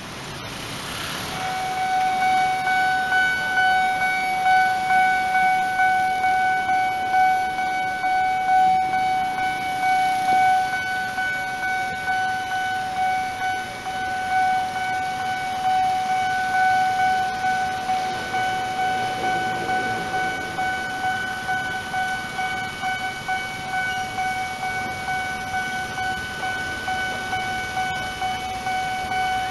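Level-crossing warning alarm ringing: one steady electronic tone with overtones, pulsing at a quick even rhythm, which signals that the barrier is down for an approaching train.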